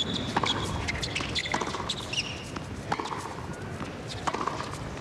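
Tennis rally on a hard court: racquet strikes on the ball, about four sharp pops roughly every second and a quarter, over a steady background of stadium noise.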